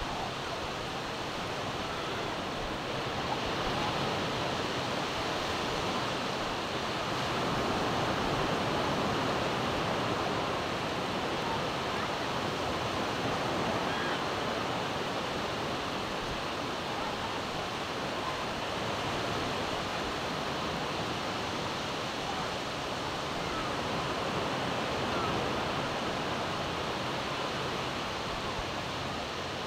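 Surf washing onto a sandy beach: a steady hiss and wash of waves that swells a little now and then.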